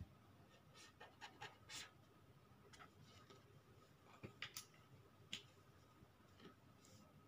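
Faint pen scratches on paper from drawing a circuit diagram, a few short strokes about a second in and again around four to five seconds in, over near-silent room tone.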